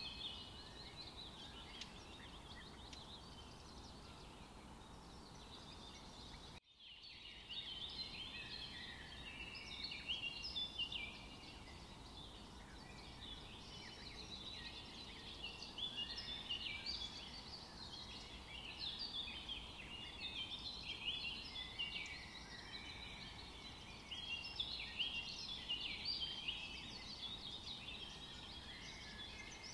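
Birds chirping in a dense, continuous chorus of short high calls, cut off for a moment about six and a half seconds in.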